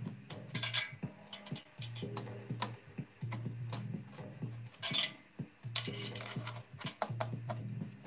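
A screwdriver clicking and clinking against metal while tightening a CPU tower cooler's mounting screws, in irregular sharp ticks with a few louder clinks.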